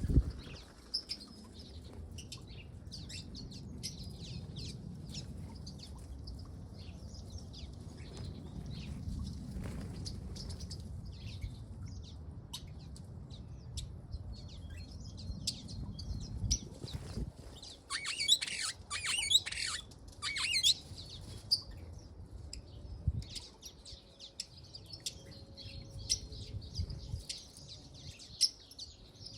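Water rails calling: scattered short high calls, with a dense burst of harsh calls about 18 to 21 seconds in, over a low background rumble.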